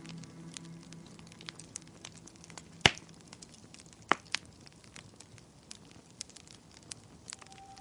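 Wood fire in a fireplace crackling, with scattered small snaps and two loud pops, one about three seconds in and one about a second later. The tail of soft music fades out at the start.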